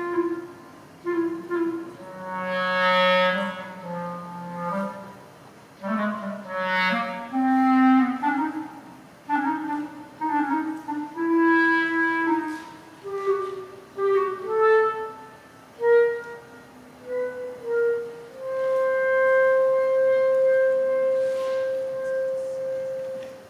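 Solo clarinet playing a live improvisation: a phrase of short separate notes that climbs step by step from low to middle register, ending on one long held note near the end.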